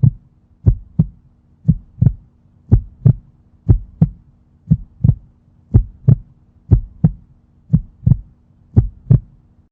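Heartbeat sound effect: a steady lub-dub of two low thumps about a third of a second apart, repeating about once a second over a faint steady hum.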